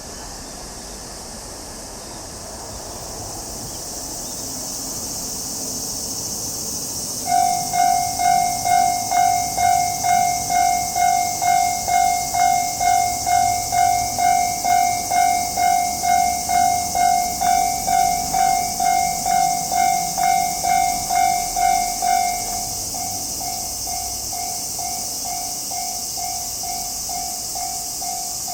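Japanese level-crossing warning bell starts about seven seconds in, sounding its electronic 'kan-kan' about twice a second over a steady high hiss. Near the end it drops to a quieter level and keeps ringing.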